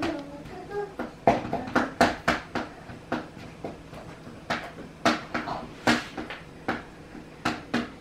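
A serrated knife cutting slits into a raw pie's top crust, with irregular sharp clicks and taps about one or two a second.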